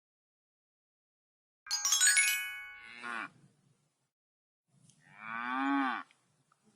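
A bright chime rings about two seconds in, followed by a short, faint cow moo. Near the end a cow moos once more, longer and louder, its pitch falling.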